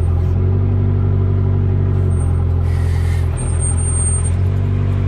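Takeuchi TB45 mini excavator's diesel engine running steadily under work, with a brief hiss about three seconds in.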